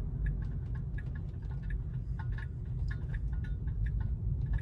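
Tesla Model 3 turn-signal indicator ticking in the cabin, about three ticks a second, over a steady low rumble of the car rolling slowly.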